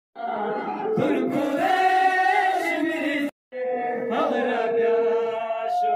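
Male voices chanting a nauha, a Shia Muharram lament, with a lead singer on a microphone and other men joining in long held, wavering notes. The sound cuts out completely for a moment about halfway through.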